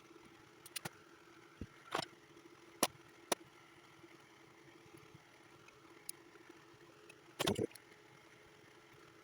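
Scattered sharp clicks and light taps of small hand tools and stiff wire being handled, about eight in all, the loudest a short clattering cluster near the end, over a faint steady hum.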